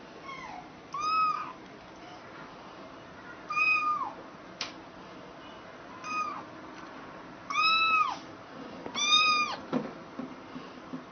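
Domestic cat meowing about five times, a second or two apart, each meow rising and then falling in pitch. A single sharp click comes a little before the middle.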